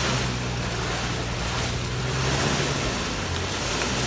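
VW Passat 4motion engine held at high revs under full throttle in mud, with a steady rushing noise of wheels churning; the revs dip briefly about three seconds in, then come back up.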